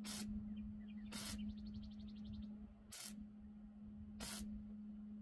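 Wire-feed welder laying four short tack welds on a steel mower deck, each a brief quarter-second crackle, about a second or so apart, over a steady low hum.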